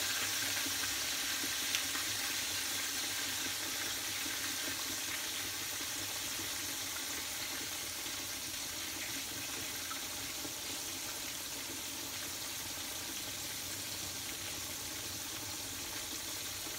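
Boneless milkfish (bangus) frying in hot oil in a pan: a steady sizzling hiss that eases off slightly over the seconds, with one light tap about two seconds in.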